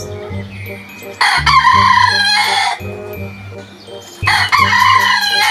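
A rooster crows twice, each crow lasting about a second and a half, with the second one starting about four seconds in. Soft background music plays underneath.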